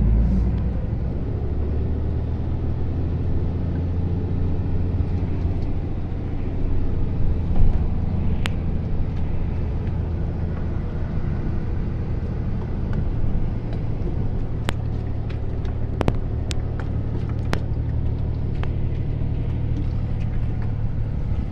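Vehicle engine and road noise heard from inside the cab while driving, a steady low drone. In the second half there are a few sharp clicks.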